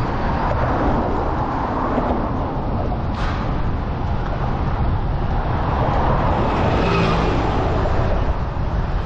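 Steady road traffic noise with a low rumble, and a vehicle passing by about seven seconds in.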